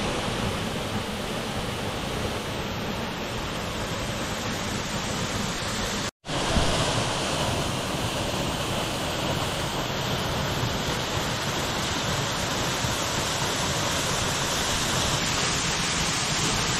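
Steady rush of falling water from a small rainforest creek waterfall, an even wash of noise that drops out for a moment about six seconds in and then carries on.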